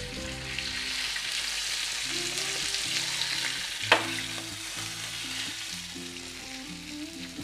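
Semolina-coated pomfret shallow-frying in oil on a tawa, a steady sizzle, with a single sharp knock about four seconds in.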